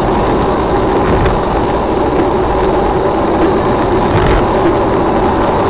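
Steady engine and road noise of a moving vehicle, loud and unchanging.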